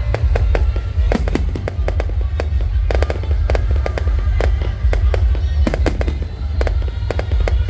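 Fireworks going off in quick succession: a dense run of sharp bangs and crackles, several a second, over a constant low rumble.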